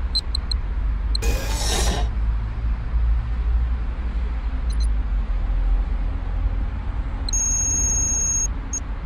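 Sci-fi computer-interface sound effects over a steady deep hum: short electronic bleeps just after the start and again around five seconds in, a whoosh at about one second, and a high chirping data tone for about a second near the end.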